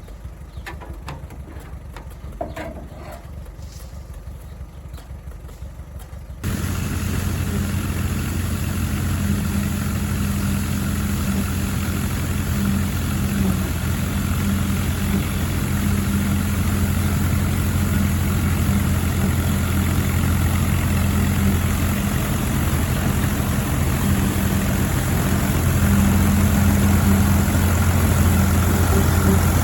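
Allis-Chalmers WD45 tractor engine running steadily at harvest work. For about the first six seconds it is fainter, with scattered clicks, then it becomes abruptly much louder and closer.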